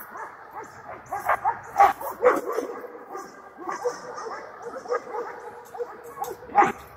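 A dog giving repeated short barks and whines.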